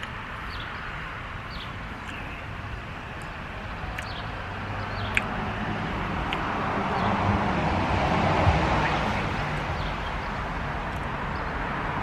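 A car going by on the street: a growing rush of engine and tyre noise that peaks about eight seconds in and then eases off. Short bird chirps are scattered through, and there is one sharp click about five seconds in.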